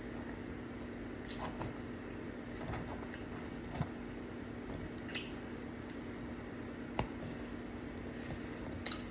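A person chewing food close to the microphone, with scattered wet mouth smacks and clicks over a steady low hum.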